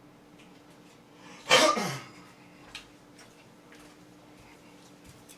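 A single loud, short cough about a second and a half in, ending on a falling voiced tail, over a faint steady hum.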